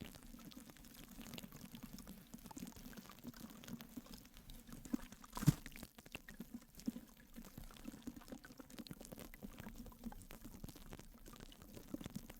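Faint water sounds, pouring or bubbling, with small drips and crackles throughout. A single sharp click comes about five and a half seconds in.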